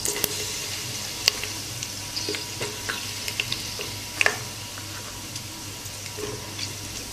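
Hot oil sizzling in a pressure cooker with cumin and fenugreek seeds crackling in it, as spoonfuls of gram flour go into the oil. A steady sizzle with scattered sharp pops and clicks, the loudest about four seconds in.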